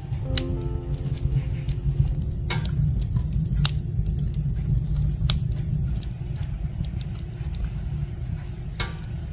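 Wood fire burning in a stove's firebox: irregular sharp crackles and pops over a steady low rush of flame.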